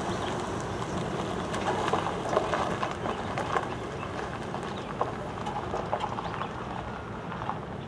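Freight train rolling past: steel wheels clicking and knocking over rail joints, over a steady rumble of the passing cars.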